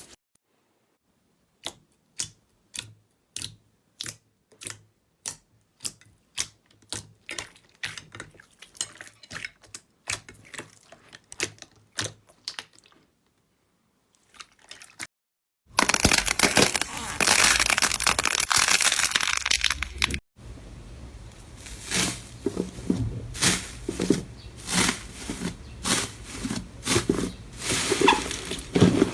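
Slime handled close to the microphone: a run of sharp clicks and pops that grows quicker, then dense crackling and crunching that breaks off suddenly, followed by more crackles.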